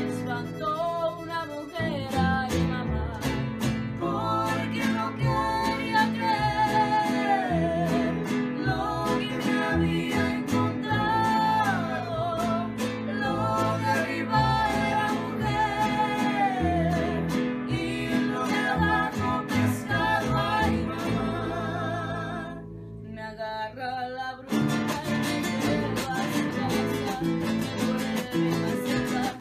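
Background song: a voice singing over guitar accompaniment. It thins out briefly about 22 seconds in, then comes back in full.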